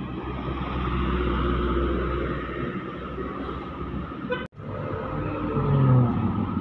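Road traffic: a light diesel truck's engine rumbling as it passes close by. About four and a half seconds in the sound breaks off abruptly and gives way to street traffic with motorcycles and trucks, an engine rising in pitch near the end.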